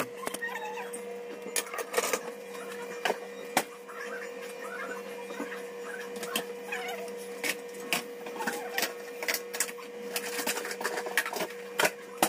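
Scattered, irregular clicks and knocks of dishes and kitchen items being handled at a counter, over a steady low electrical hum.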